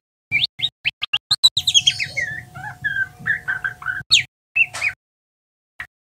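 Juvenile white-rumped shama (murai batu trotolan) practising its song in soft twittering subsong (ngeriwik). It opens with a quick run of short rising chirps, then moves into lower, varied twittering notes, with a pause near the end.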